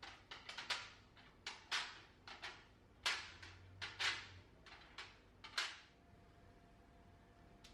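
Food-preparation handling sounds: about a dozen short, irregular scrapes and taps that stop about six seconds in, followed by a faint steady hum.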